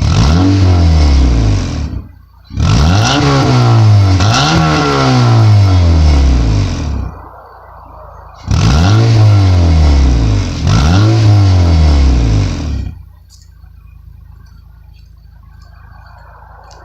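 2006–2010 Honda Civic's R18 1.8-litre four-cylinder revved through a DNA Motoring cat-back exhaust with its silencer insert fitted. Five quick throttle blips in three bursts, each snapping up in pitch and falling away more slowly, then it settles back to a steady idle for the last few seconds.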